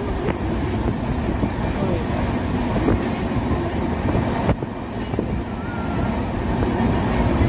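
Passenger express train running at speed, heard from inside a coach: a steady rumble of wheels on the rails with a few sharp clicks, the loudest about four and a half seconds in.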